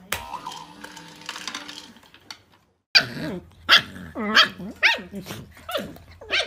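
Dogs barking and growling at each other through crate bars, a husky-type puppy and a ginger dog. A quick run of loud, pitch-bending barks and growly yaps starts about three seconds in, about two a second.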